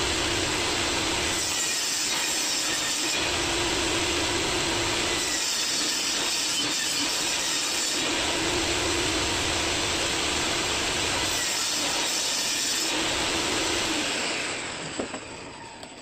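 Portable table saw running and cutting a sheet of plywood, a loud, steady noise that swells slightly as the board is fed. About fourteen seconds in, the saw winds down.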